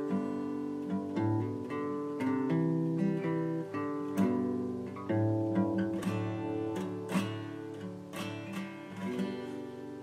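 Intro music on acoustic guitar: a plucked melody with chords, the notes ringing over one another.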